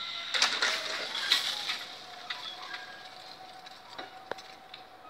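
Railway level-crossing barriers lifting. A burst of mechanical clattering and clicking as the booms start to rise, then a steady whine from the barrier drive, with a few single clicks.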